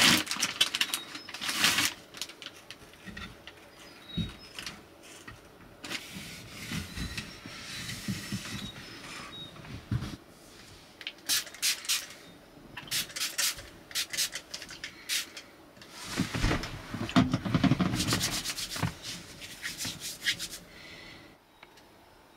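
Plastic packet crinkling and rustling in bursts as it is torn open and handled, with a louder stretch of rustling and handling about three quarters of the way through.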